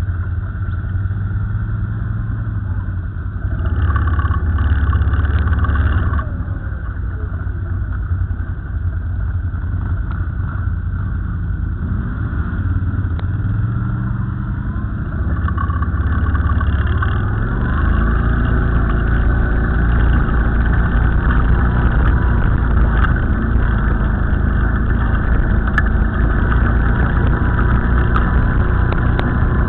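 ATV engines running and accelerating along a trail, the engine note rising and falling with the throttle; it gets louder about four seconds in and again from about seventeen seconds in.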